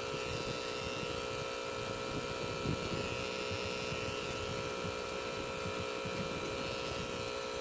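Electric tattoo machine running with a steady motor hum as the needle works into the skin.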